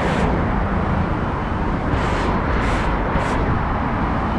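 Steady city street noise of road traffic, a dense low rumble with a few brief hissy swells.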